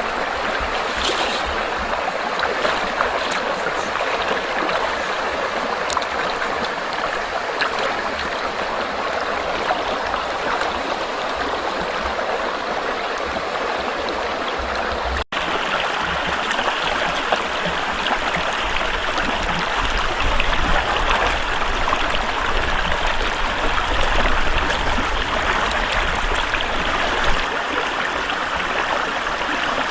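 Running water of a stream, a steady rushing and trickling, with a brief break about halfway through.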